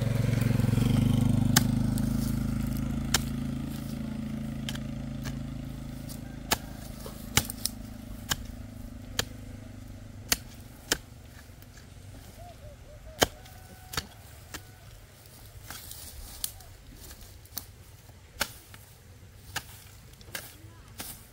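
A motor running and fading away over the first several seconds. Sharp, irregular knocks or cracks come through it, about one a second.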